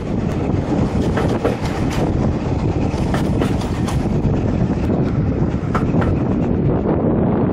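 Steam-hauled passenger train heard from aboard a coach: a steady rumble of wheels on the track, with scattered sharp clicks as the wheels pass over rail joints.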